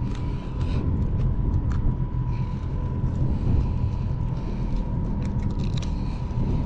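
Small boat's outboard motor idling, a steady low rumble, with a few light metallic clicks as pliers work a lure's hook out of a jack's mouth.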